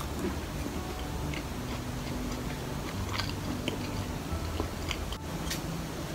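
A person chewing food with the mouth closed: soft, scattered mouth clicks over a low steady hum.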